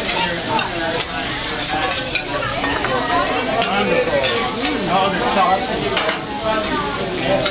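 Food sizzling on a hot steel hibachi griddle, with the chef's metal spatula scraping and tapping against the steel in sharp clicks.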